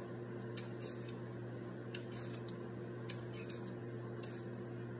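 Vegetable peeler scraping strips off a carrot in a series of short, quick strokes, about eight of them at an uneven pace. A steady low hum sits underneath.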